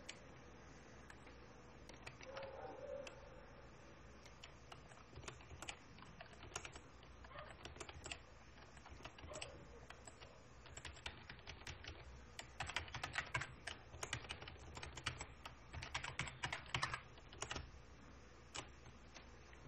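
Typing on a computer keyboard: scattered key clicks at first, then quick runs of keystrokes in the second half.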